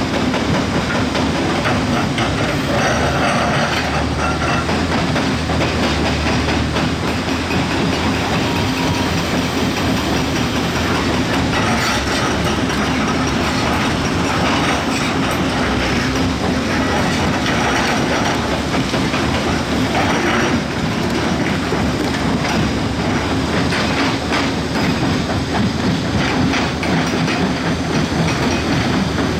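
Heavy earthmoving machinery working: a large diesel engine running steadily under load amid continual clattering and rattling of steel.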